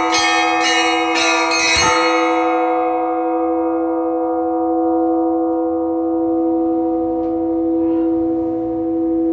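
Orthodox church bells rung by hand: the last strokes of a peal, about two a second, ending with a heavier stroke about two seconds in. The bells are then left ringing out, their lower tones humming on and fading slowly.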